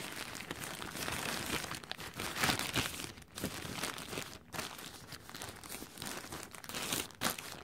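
Thin EVA plastic shower caps crinkling and rustling as hands handle them and stretch their elastic edges, with irregular louder crackles.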